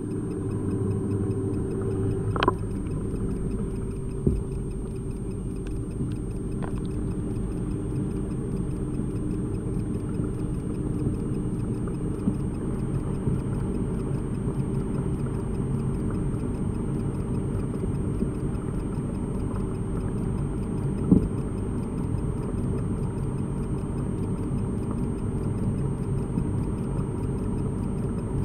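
Steady low mechanical hum with a few sharp clicks, the loudest about three-quarters of the way in.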